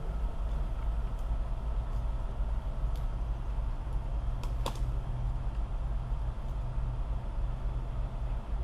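A motor running steadily with a low drone, and one sharp click or knock about halfway through.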